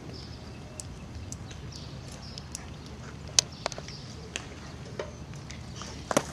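Outdoor ballfield background with scattered light clicks and small chirps, then a sharp double pop near the end as the pitch smacks into the catcher's mitt.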